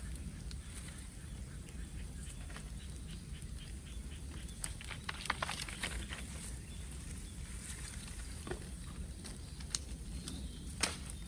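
Bonfire of bamboo burning: a steady low rumble of flames with scattered sharp crackles and pops, the loudest pop near the end, and a quick run of faint ticks about three seconds in.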